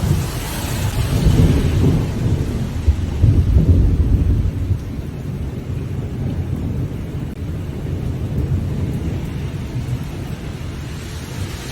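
Rolling thunder rumbling over steady rain. The rumble swells through the first few seconds, then eases, leaving the rain hiss.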